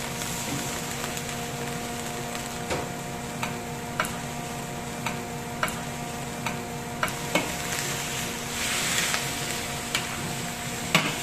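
Metal spatula stirring pork belly in a hot wok just after red wine has gone in: irregular scraping clicks of the spatula against the wok over a sizzle that swells briefly near the end. A steady low hum runs underneath.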